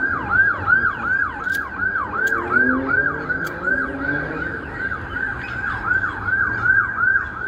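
Emergency vehicle siren sounding a fast yelp: a rapid, even train of falling sweeps, about three a second.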